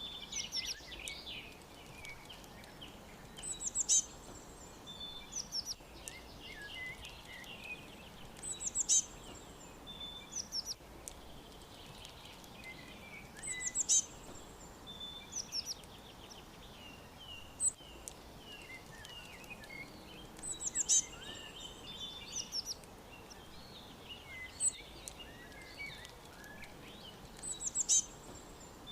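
Several songbirds chirping and singing together, with one bird repeating a short, high, loud phrase of quick falling notes about every five to seven seconds, over a faint steady background hiss.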